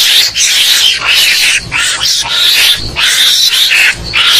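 Mongoose (garangan) fighting calls used as a hunting lure: harsh, raspy screeching in quick bursts, two or three a second.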